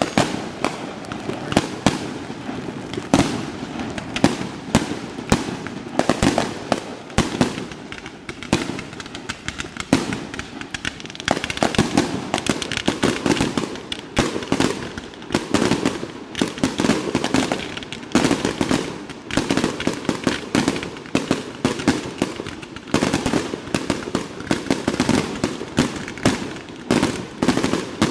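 Aerial fireworks going off in a dense barrage: rapid, overlapping bangs and crackling with hardly a break, growing heavier from about eleven seconds in.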